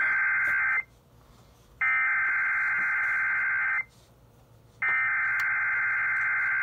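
Emergency Alert System SAME header, the digital data bursts that encode a severe thunderstorm watch alert. The end of one burst is followed by two more full bursts of about two seconds each, with one-second gaps of near silence between them.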